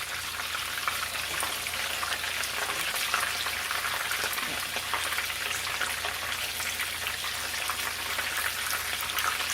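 Panko-breaded chicken strips frying in shallow oil in a nonstick pan: a steady sizzle with many small crackles and pops. The oil is hot enough that the strips are frying a little too fast.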